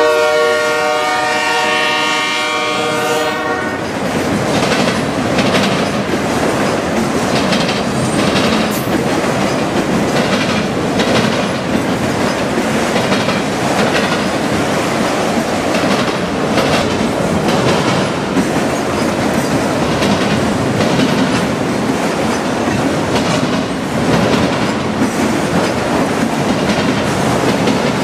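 Diesel locomotive air horn blowing a chord for about the first four seconds, then a long string of freight autorack cars rolling past close by, their wheels clattering steadily over the rail joints.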